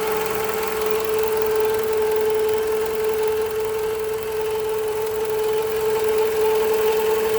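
2010 Toyota RAV4 idling with a steady whine from under the hood, one even pitch that does not change over the engine's running. The owner traced the whine to a failing alternator.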